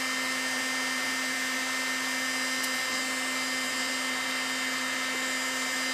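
Heat gun running on high, a steady whir with a constant hum underneath.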